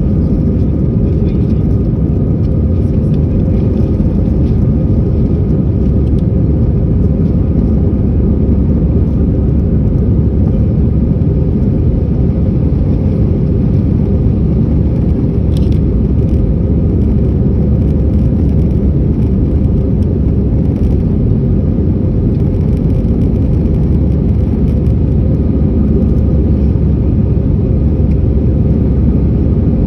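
Airbus A320 cabin noise in the climb: the jet engines and airflow make a loud, steady low roar with a faint steady hum on top.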